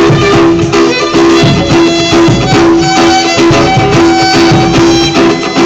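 Buskers playing live music on string instruments: a melody of repeated held notes over a steady rhythmic accompaniment.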